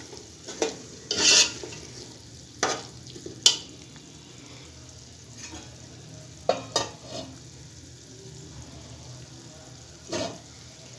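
Slotted metal spoon stirring and scraping peas and masala in an aluminium pot, with several sharp clinks and scrapes in the first few seconds, a few more after about six seconds and one near the end, over a steady low sizzle of the cooking masala.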